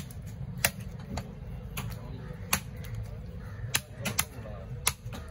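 Knife blade striking a round wooden log chopping block as pieces of trevally are cut, a string of sharp, irregular chops, about eight in five seconds, over a low background murmur.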